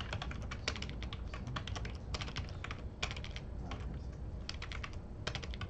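Typing on a computer keyboard: a quick, irregular run of keystrokes with a few short pauses.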